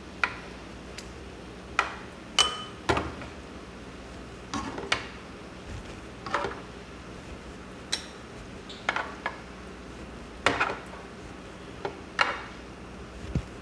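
Metal tongs clicking and clinking against a frying pan and a bowl, about a dozen irregular strikes, as fried beef cubes are lifted out of hot oil. Under them, a low steady sizzle of the oil.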